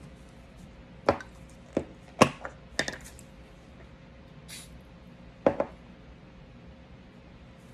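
Hard clicks and knocks from a field-stripped M&P Shield Plus 9mm pistol slide and parts being handled on a table, five or six in all, the loudest about two seconds in. There is a brief hiss of an aerosol cleaner sprayed onto the slide a little after halfway.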